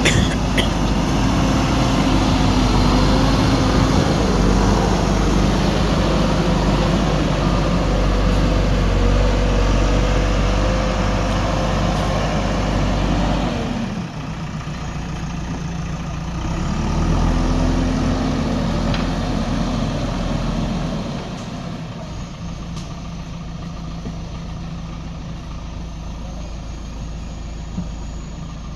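Heavy diesel engine running, revved high for the first half, then dropping back suddenly about fourteen seconds in. It revs up again briefly a few seconds later, then settles to a quieter, steady lower speed.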